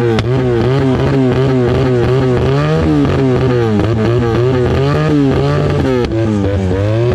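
Small-displacement motorcycle engines revved hard and repeatedly at the start of a drag race, the pitch rising and falling several times a second.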